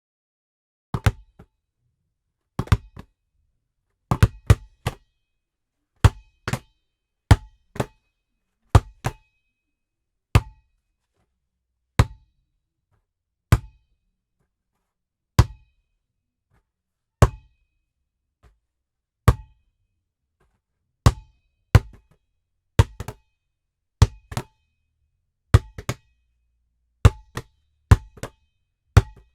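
Basketball bouncing, recorded dry: sharp single bounces every one to two seconds, some followed by one or two quicker, weaker rebounds, with silence between.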